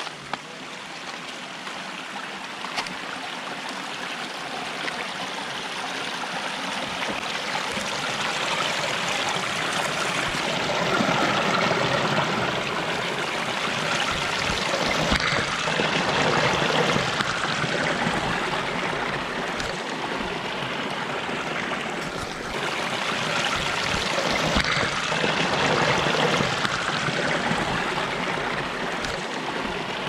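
Shallow stream running and splashing over rocks, growing louder over the first ten seconds or so, then steady.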